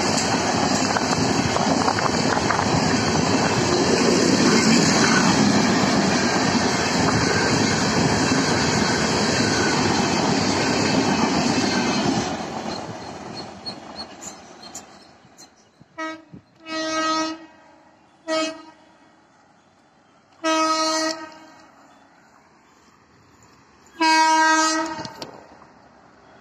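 LHB passenger coaches run past at speed with a steady rumble and clatter of wheels on the rails, then fade away as the train recedes. In the second half, a WAP4 electric locomotive approaching in the distance sounds its horn in five blasts of uneven length, with gaps between them.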